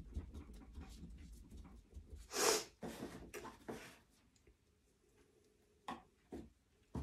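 Gloved hands knead and press bath-bomb bubble dough into a silicone cutter stamp on a stainless steel table, making rubbing, squishing and low rumbling noises with small clicks. About two and a half seconds in there is one short, loud rush of noise, then more rustling. After that it is mostly quiet with a few light taps as cutters are handled.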